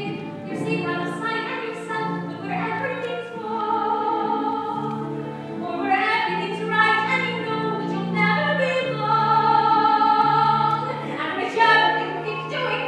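A solo female voice sings a musical-theatre song live over instrumental accompaniment, holding several long notes.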